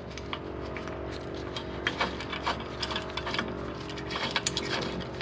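Scattered light metal clinks and ticks of a washer, nut and tubular adapter being fitted onto a threaded bushing-extraction bolt, over a steady low hum.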